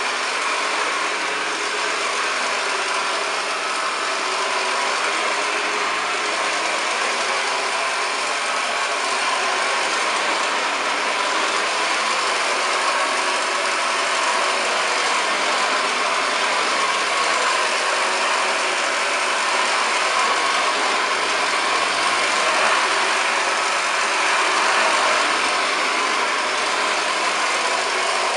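1929 Hoover Model 725 upright vacuum cleaner running steadily while cleaning carpet.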